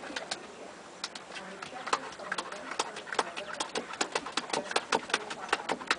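Puppies at play: a rapid, irregular run of sharp clicks and taps, several a second.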